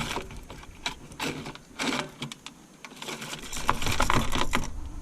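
Rummaging through fishing tackle for a hook: scattered clicks, small rattles and rustling, busiest and loudest from about three and a half to four and a half seconds in.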